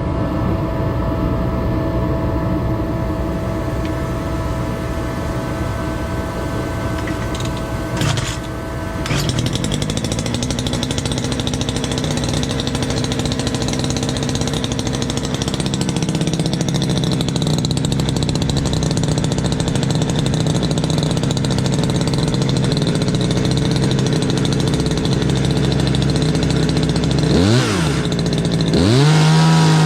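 Ported Poulan Predator two-stroke chainsaw with a custom welded exhaust running steadily. Near the end it is revved up sharply and held at high revs.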